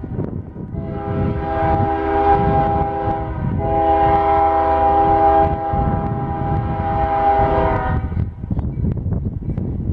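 CSX diesel freight locomotive's multi-chime air horn sounding two long blasts: the first starts about a second in, the second follows almost at once and stops about two seconds before the end. A low rumble runs underneath.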